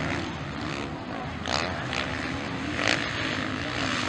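Several motocross bikes' engines running on the track, revving up and down as the riders work the throttle, with louder throttle blasts about a second and a half and about three seconds in.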